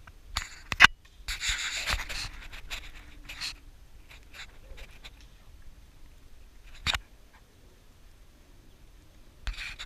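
Dogs moving about on dry, dusty dirt: scuffing and scraping with a few sharp clicks or snaps. The sharpest click is just under a second in and another comes about seven seconds in.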